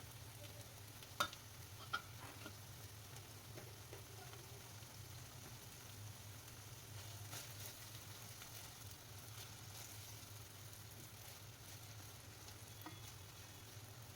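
Food frying in a pan, a faint steady sizzle over a low steady hum, with two sharp clicks about a second and two seconds in.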